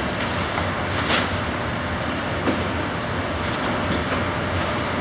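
Steady mechanical rumble and hum of machinery, with a few short knocks as heavy feed bags are set down on a metal hand cart.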